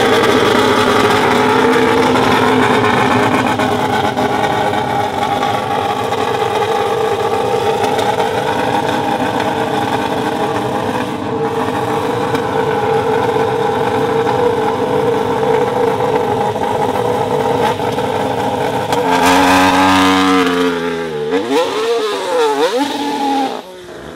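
A Mercedes-AMG F1 W10's 1.6-litre turbocharged hybrid V6 runs at a steady, even high idle. About nineteen seconds in it revs up as the car pulls away, its pitch sweeping up and down several times, and the sound drops away sharply near the end.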